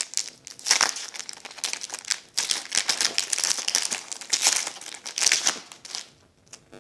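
Foil wrapper of a Pokémon TCG XY booster pack crinkling as it is torn open by hand, in a run of irregular rustling bursts that die down near the end.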